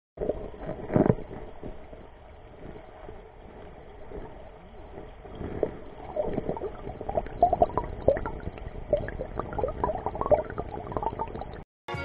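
Water splashing and gurgling in a valley stream, with irregular splashes, one sharp splash about a second in and busier splashing from about halfway through. The sound cuts off just before the end.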